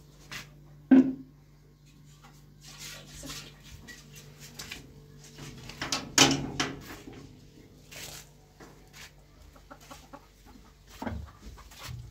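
Domestic chickens clucking, among a few knocks and a loud clatter about six seconds in. A faint steady low hum stops about ten seconds in.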